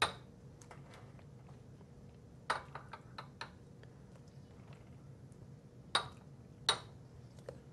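Stainless steel ladle clinking against a stainless steel mixing bowl and ceramic ramekins while custard is ladled out, giving a few sharp ringing pings with lighter taps between, over a faint low hum.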